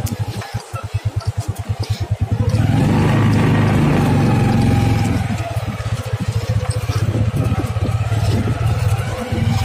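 Motorcycle engine of a passenger tricycle (motorcycle with sidecar) running with a fast, even putter, heard from the sidecar. It picks up and grows louder about two and a half seconds in for a couple of seconds, then settles back to a steady putter.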